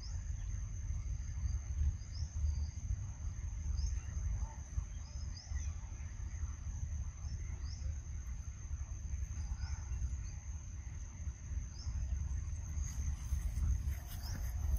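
Insect drone: a steady high-pitched buzz of crickets or cicadas, with faint short rising chirps about once a second, over a loud, uneven low rumble.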